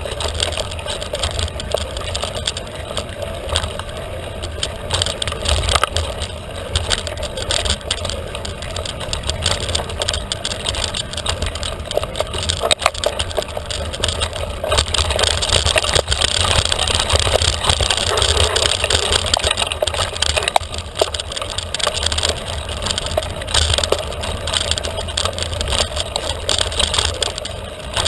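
Felt carbon 29er mountain bike rolling along a trail, its frame and parts rattling and clicking constantly, over a steady low rumble of wind on the microphone.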